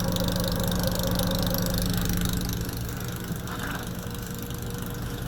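Jeep Compass engine idling steadily, running again now that the undrilled drain weep hole behind its cold no-start has been drilled. About two and a half seconds in, its steady hum fades and the sound drops.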